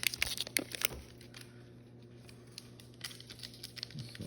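Crinkling of a foil trading-card pack wrapper and rustling of the cards being handled, heard as scattered small clicks and crackles that thin out in the middle and pick up again near the end.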